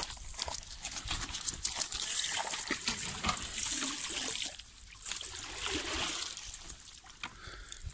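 Wet cast net being handled on pebbles: scattered clicks and rustles of mesh and stones, with water trickling and dripping.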